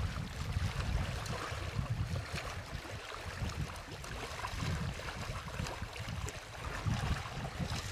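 Wind rumbling on the microphone over small waves lapping at a rocky lakeshore: a steady, unsettled hiss and rumble with no distinct splashes or clicks standing out.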